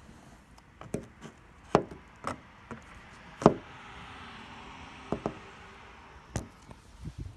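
A car passes on the street with a soft swell of tyre noise that rises and fades over about two seconds, while several sharp knocks and taps sound close by, the loudest about three and a half seconds in.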